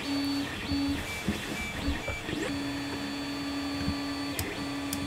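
Stepper motors of a Creality Ender 3 3D printer whining at a steady pitch as the print head moves. The first couple of seconds are short stop-start moves, then the moves run longer, with a few light clicks.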